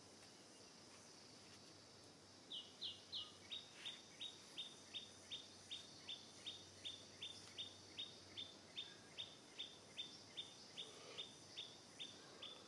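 A bird calling in a long, even run of short high notes, about three a second, starting about two and a half seconds in and stopping just before the end, over a faint steady high insect hum.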